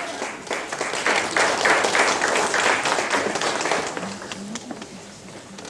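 Audience applauding a speaker who has just been introduced. The clapping swells about a second in, holds, then dies away about four seconds in.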